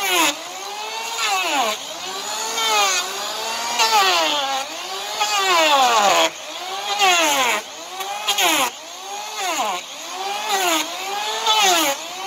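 Electric hand planer shaving the horn of an overgrown draft horse hoof. Its motor whines, and the pitch rises and falls over and over, roughly once every second and a half, as each pass bites into the hoof and lets go.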